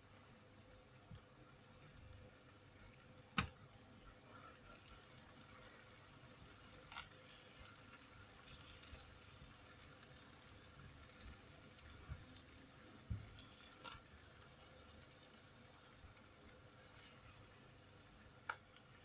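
Faint sizzle of spring rolls shallow-frying in oil in a frying pan, with scattered sharp pops and clicks, the loudest about three and a half seconds in. Later, tongs turning the rolls add a few light taps.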